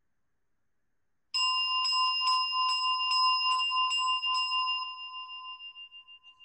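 A small gong struck about eight times, roughly twice a second, starting about a second in, each stroke ringing with clear high tones. The strokes stop a little after four seconds and the ring fades slowly with a wavering pulse. It is rung to signal the end of a relaxation exercise.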